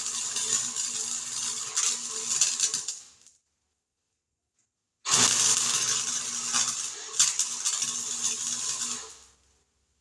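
Electric arc welding on the sheet-metal patch panels of a truck bed: a crackling sizzle over a steady electrical hum, in two runs. The first stops about three seconds in and the second starts about five seconds in.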